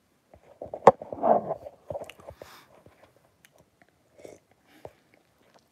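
A person sipping and swallowing a drink from a glass, with a sharp click about a second in followed by small wet mouth and swallowing sounds.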